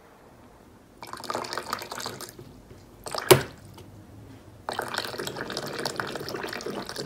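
Water running from a Midea water dispenser's tap as a cat paws the lever, in two spells: starting about a second in and again from about two-thirds of the way through. A single sharp knock comes in between.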